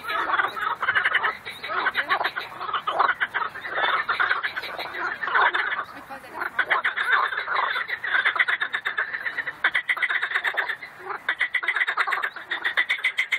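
A chorus of frogs croaking from a pond: many overlapping calls, each a run of rapid pulses. The chorus thins briefly about six seconds in and again a couple of seconds before the end.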